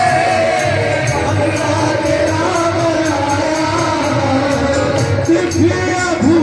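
Indian devotional song: a singing voice carries a melody over percussion that keeps a steady beat.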